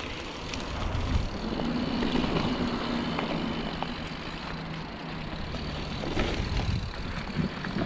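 Mountain bike descending a dirt singletrack: steady tyre rumble on packed dirt with wind rush on the microphone and small rattles and ticks from the bike. A low steady hum rises in for a few seconds in the middle.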